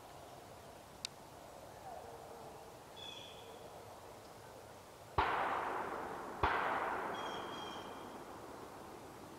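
Two distant gunshots a little over a second apart, each followed by a long rolling echo that fades over about two seconds.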